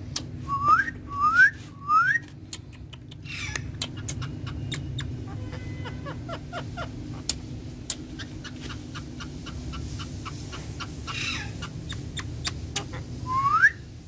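Female Indian ringneck parakeet giving three quick rising whistles in the first two seconds and one more near the end, with faint scattered clicks between them.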